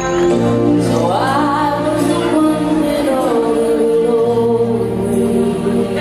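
Slow song with a singing voice over long held chords.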